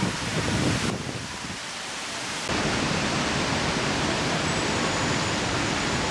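Steady hiss of heavy rain, with no engine heard. The noise changes abruptly about a second in and again about two and a half seconds in.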